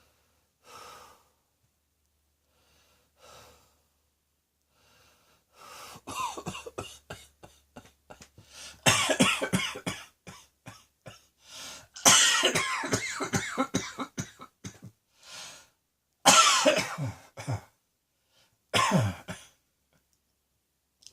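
A person coughing: two faint breaths at first, then from about six seconds in, several bouts of quick, repeated coughs with short pauses between them.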